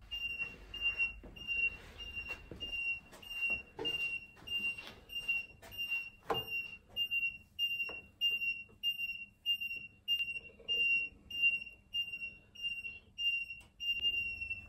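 Heat press's electronic timer beeping, one high-pitched beep repeated evenly nearly twice a second, the alarm that the pressing time is up. Knocks and rustles of the shirt and press being handled sound under it, the sharpest about six seconds in.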